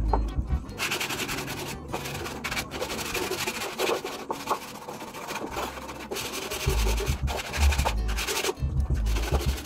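Wooden chair being sanded by hand with sandpaper: long rasping rubbing strokes that start about a second in, with short pauses between strokes.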